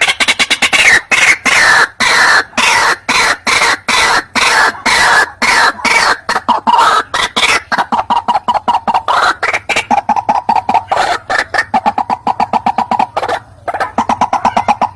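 White-breasted waterhen (ruak-ruak) calling in a rapid run of harsh, repeated croaking notes, several a second, with a brief break near the end. This is a lure recording of the bird's call, used to draw in waterhens.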